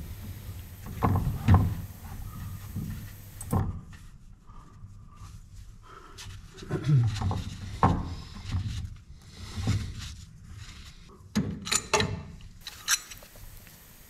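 Gloved hands working a brass compression fitting and pulling a copper pipe section free: scattered, irregular metallic clicks, knocks and clunks.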